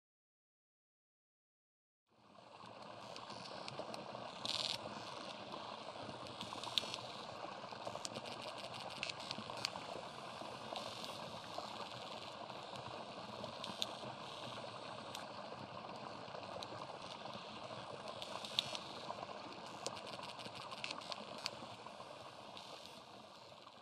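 After about two seconds of silence, a steady rushing noise fades in, dotted with scattered crackles and clicks, and begins to fade away near the end.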